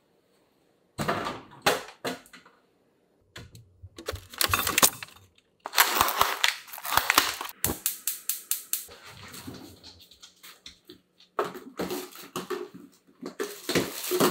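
Kitchen handling sounds: irregular clicks, knocks and clatter of a pan and utensils being handled and a gas hob being lit, starting about a second in.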